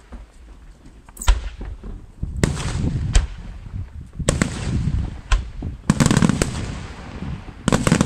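Aerial firework shells bursting one after another: about seven sharp bangs, spaced roughly a second apart and bunching together near the end, each trailing off in a rumbling echo.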